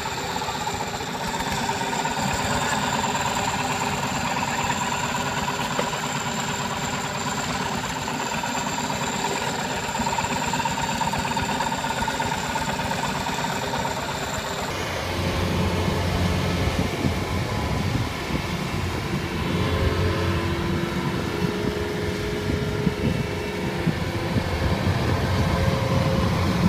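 Single-cylinder diesel engine of a two-wheel walking tractor running steadily. About halfway through, the sound shifts to a deeper, heavier engine note.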